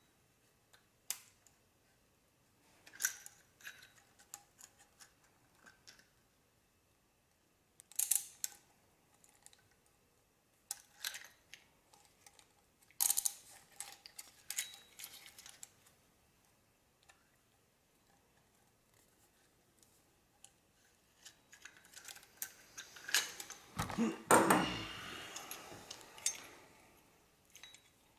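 Scattered clicks and clinks of metal tools and actuator parts being handled, with a longer, louder stretch of rattling and scraping near the end as the actuator's spring and diaphragm stack is worked in a CV-boot tool.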